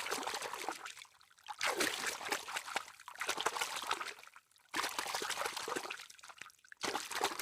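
Water trickling and splashing in uneven spurts, with sudden cuts between short takes.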